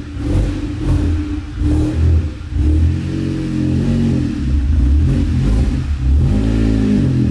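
Mk7 VW Golf GTI's turbocharged 2.0-litre four-cylinder running loud through a Cobra Sport turbo-back exhaust with resonator, idling as it warms up after a cold start. The engine note rises and falls slightly a few times, most clearly near the end.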